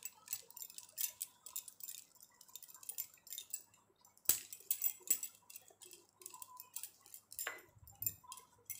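Wrist bangles clinking in faint, irregular little clicks as the hands massage a grainy scrub over the skin, with a sharper clink about four seconds in.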